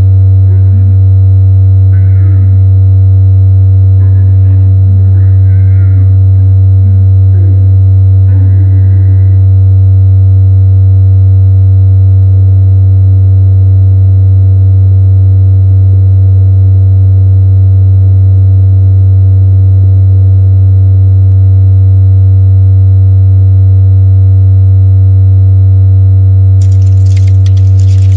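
A loud, steady, low electronic drone: a pure hum-like tone with a few fainter steady tones above it. Faint gliding sounds drift over it during the first ten seconds and fade out. Near the end a crackling noise sets in.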